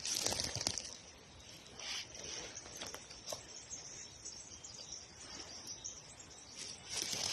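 Outdoor ambience with a steady high insect-like drone and scattered rustles and clicks. The rustling is louder in the first second and again near the end.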